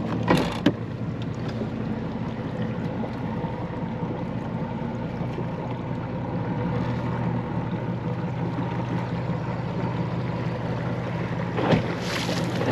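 Bass boat outboard motor idling steadily with a low even hum as the boat moves off slowly, with water and wind noise over it; a few brief knocks near the start and again near the end.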